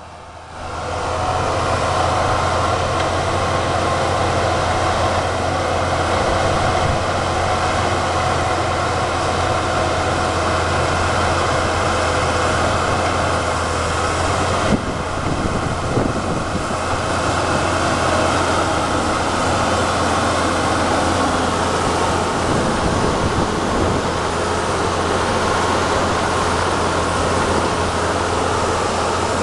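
John Deere 750C crawler dozer's diesel engine running steadily under load as it pushes snow and brush with its blade. A single brief clunk comes about halfway through.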